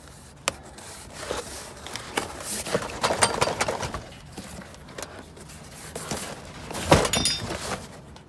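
Metal hardware and door frames being handled, clanking and rattling in a string of knocks, with a loud metal strike about seven seconds in that rings briefly.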